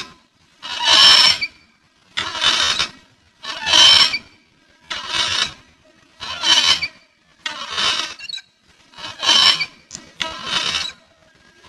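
Metal playground swing squeaking on each pass as it swings back and forth, about one squeal every 1.3 seconds in a steady rhythm.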